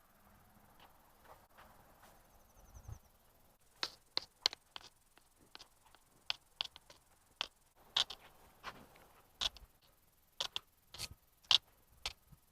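A run of about twenty short, sharp taps at an irregular pace. They start a few seconds in and keep going; before that there is only a faint hiss.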